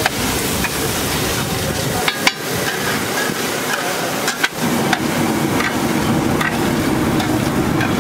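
Egg mixture sizzling on a large flat griddle while a metal spatula scrapes and clacks against the plate, with a few sharp strikes, the loudest about two seconds in and again a little after four seconds.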